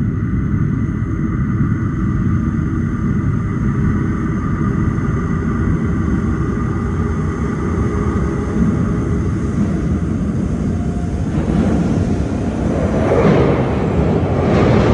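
An approaching London Underground 1995 Stock train rumbling in the tunnel, with faint steady whines above the low rumble. From about eleven seconds in, a rushing noise of air and wheels builds and grows louder as the train nears the platform.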